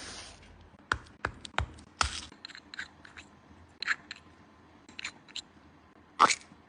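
Crafting handling sounds of a paper-and-tape squishy: a short rustle of tape or paper at the start, then a string of sharp clicks, snips and crinkles, with the loudest click near the end.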